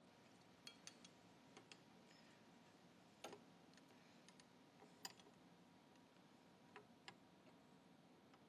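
Faint, irregular small metal clicks and clinks as a washer and a 3/4 inch lock nut are fitted onto a caster wheel's stem, over near-silent room tone.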